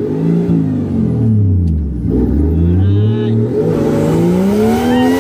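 Nissan R34 Skyline drift car's engine heard from inside the cabin, its revs falling for about two seconds and then climbing twice as the car is driven hard.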